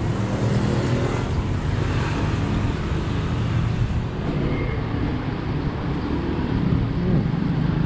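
Road traffic noise from passing vehicles: a steady engine rumble that carries on without a break.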